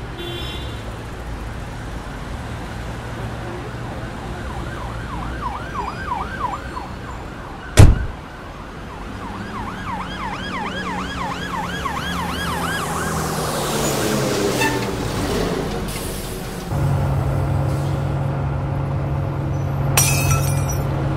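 Busy city street traffic with an emergency siren wailing in quick rising-and-falling sweeps through the middle stretch. About eight seconds in a single sharp bang is the loudest sound. Later a heavier truck engine runs steadily, and a short hiss of air sounds near the end.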